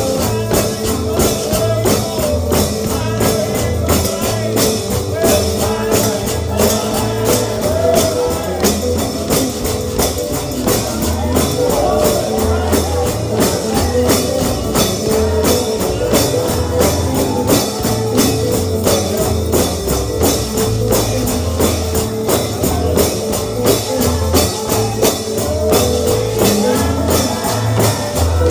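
Bluegrass gospel music, with a tambourine keeping a steady beat over low bass notes.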